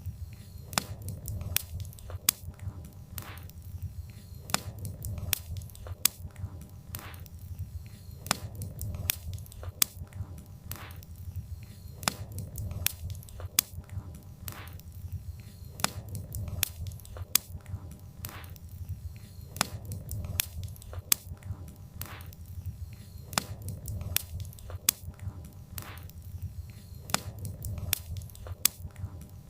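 Wood fire burning with a steady low rumble of flames and irregular sharp crackles and pops of the burning logs, several every second.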